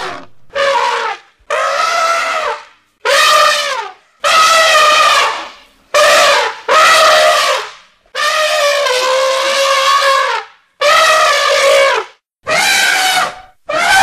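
Elephant trumpeting: about ten blasts in a row, each from half a second to two seconds long, with short gaps between them and some wavering in pitch.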